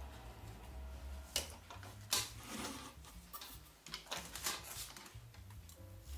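Low rumble of a small gas torch flame on brass, fading briefly about four seconds in, with several sharp clicks and knocks from handling the metal lamp case in the middle.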